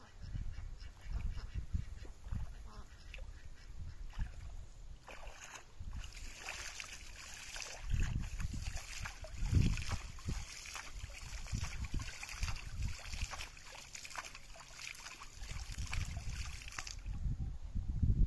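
Shallow pond water splashed repeatedly by hand, a hissing, spattering run of splashes starting about six seconds in and stopping about a second before the end, with low rumbling underneath.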